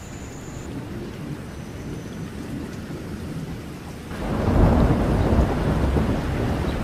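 Thunderstorm: a low rumble, then about four seconds in a sudden loud rush of rain with heavy thunder.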